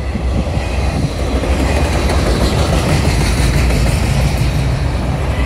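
Freight train rolling past, its wheels running steadily on the rails with a continuous low rumble.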